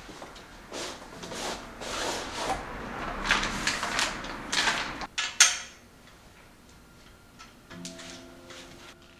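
Packaging being handled: a seatpost is slid out of its cardboard box and pulled from a crinkling plastic sleeve, rustling for about five seconds, with a sharp knock about five seconds in. Then it goes quieter, and a faint squeaky rub comes near the end as the seatpost is slid into the steel frame's seat tube.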